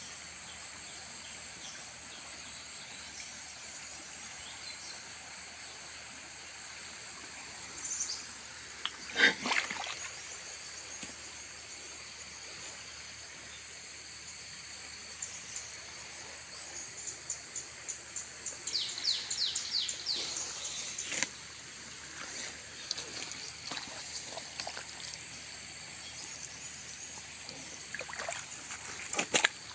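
Steady high-pitched insect chorus over the wash of a fast-flowing, muddy river. A few sharp knocks and footsteps on wet, muddy ground come through it, the loudest knock about nine seconds in.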